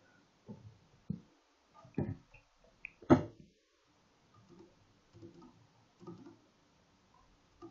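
Soft, irregular clicks and taps from a computer keyboard and mouse, with one louder tap about three seconds in.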